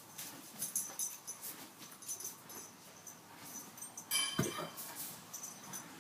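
Horse making short hiccup sounds, a reaction to its saddle being put on. The loudest comes about four seconds in, among many light clicks.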